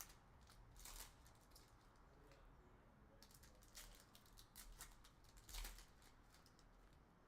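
A series of short, faint swishes and rustles: trading cards being slid and flipped through by hand as packs are opened.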